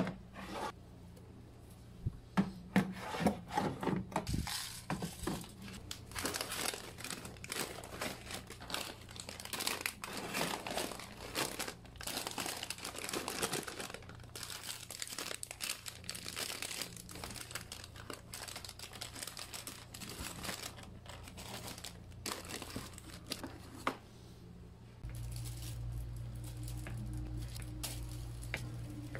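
Plastic snack packets rustling and crinkling as they are handled and packed into a plastic drawer, with frequent light knocks and clicks of items being set down. Near the end a steady low hum comes in.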